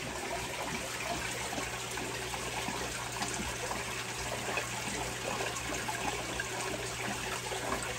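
Aquarium water trickling and bubbling steadily from the tank's filter and aeration, over a steady low hum.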